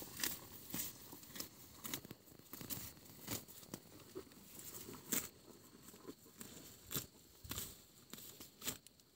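Water buffalo grazing close by, tearing off mouthfuls of grass in a series of short crisp rips, about one or two a second.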